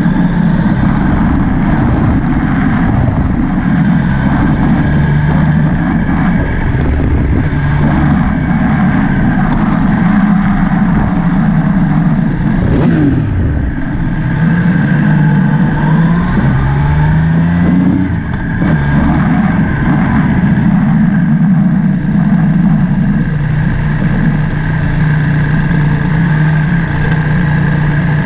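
Motorbike engine running under way, its pitch dropping as it slows about halfway through and rising again as it speeds up a few seconds later.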